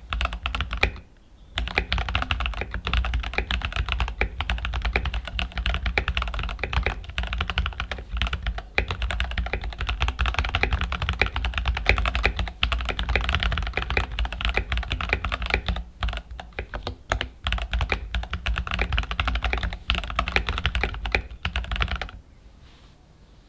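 Fast continuous typing on a Keychron K8 Pro mechanical keyboard fitted with Gateron G Pro Brown tactile switches, the keystrokes clicking in quick succession. It breaks briefly about a second in and stops shortly before the end.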